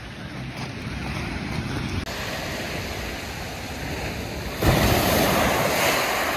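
Sea surf breaking and washing up a shingle beach. A louder wash of surf rises about two-thirds of the way in, then eases.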